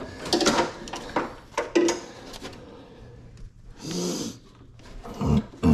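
The stock ABS module of an S197 Mustang and its bundle of steel brake hard lines clicking, knocking and rattling against each other and the chassis as they are wiggled loose by hand. There is a short hiss about four seconds in and a low thump near the end.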